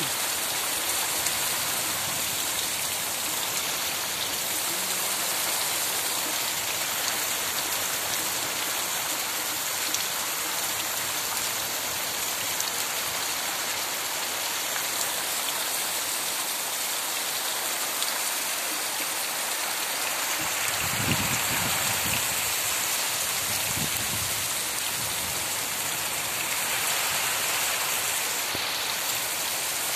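Heavy rain falling steadily on a wet dirt road, a dense, even hiss of drops. A brief low rumble comes and goes about two-thirds of the way through.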